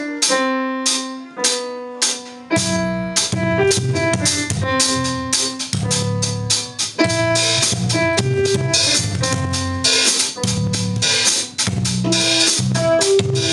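A school band playing a song on keyboard and drum kit. Keyboard notes open it, and the drums and a fuller low end come in about two and a half seconds in.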